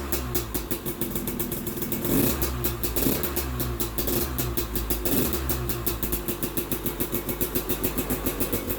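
2020 KTM 300 XC TPI two-stroke dirt bike engine running through a Pro Circuit Type 296 spark-arrester silencer, louder than the stock silencer. Its note rises and falls with a few short throttle blips in the first half, then settles into an even, rapidly pulsing idle.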